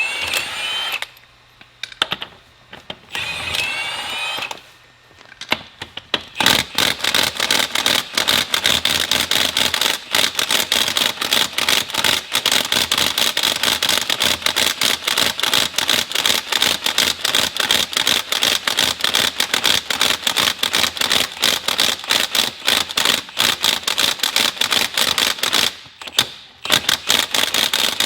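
Cordless impact wrench on the loader's wheel lug nuts. It makes two short bursts with the motor whining up and down, then hammers for about twenty seconds of rapid impacts, with a brief break near the end. It is being run in reverse, where the owner says it seems to have no power despite a fully charged battery.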